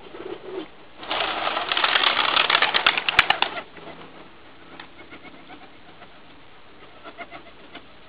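Flock of young tippler pigeons taking off from the loft roof: a loud burst of wing flapping with rapid wing claps, lasting about two and a half seconds, then stray flaps.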